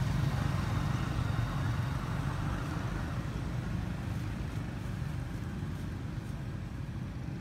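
Low, steady rumble of a motor vehicle's engine that slowly fades away.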